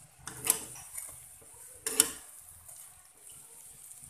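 Metal spatula knocking and scraping against a small nonstick frying pan as it works under a frying egg-and-sausage pancake: two short clatters about a second and a half apart.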